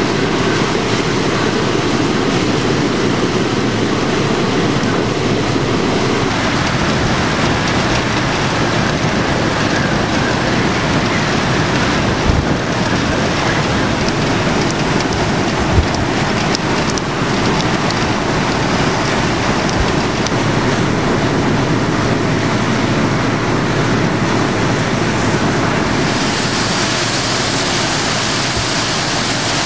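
Hurricane wind blowing hard with rain and breaking surf, the wind buffeting the microphone. The mix of the noise shifts about six seconds in and again near the end, and there are a few brief thumps midway.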